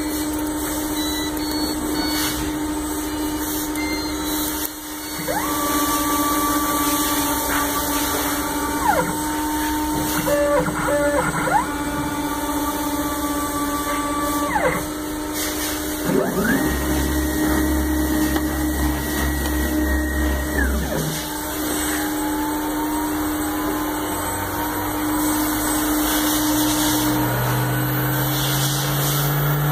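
AXYZ 6010 CNC router running a program: its 5 HP HSD spindle holds a steady whine while the axis drive motors whine up in pitch, hold, and wind back down as the gantry makes several moves. Near the end a lower tone rises steadily.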